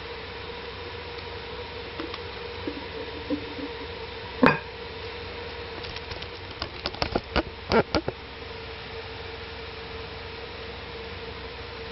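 A steady electrical hum with one sharp knock about four seconds in, then a quick run of clicks and taps a couple of seconds later.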